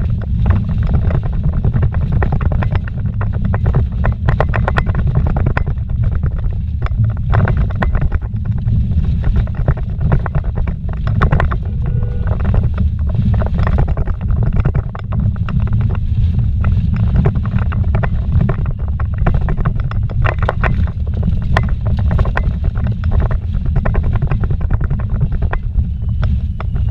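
Vehicle driving fast on a rough dirt road, heard from inside the cabin: a steady low rumble from the engine and tyres, with frequent rattles and knocks from bumps and gravel.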